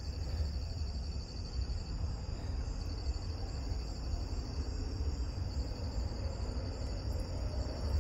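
Crickets chirring in a continuous high trill over a steady low rumble.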